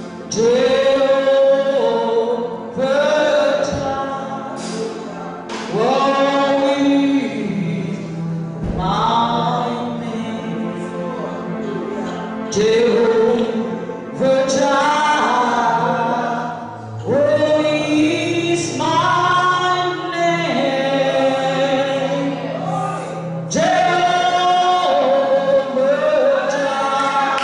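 A choir singing a gospel song, in sung phrases of a few seconds each, with a low note held beneath the voices through the middle.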